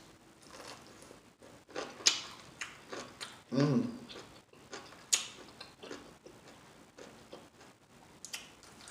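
Close-miked mouth sounds of eating a Reuben sandwich and pickle: irregular wet smacking clicks and chewing. A short hum of the voice comes about three and a half seconds in.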